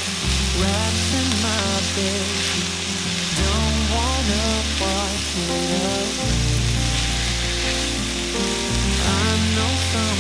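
Sliced onions and maitake mushrooms sizzling in a Staub enameled cast-iron pan as they are stirred and tossed with chopsticks. Background music with a melody and a bass line that changes note about every three seconds plays throughout.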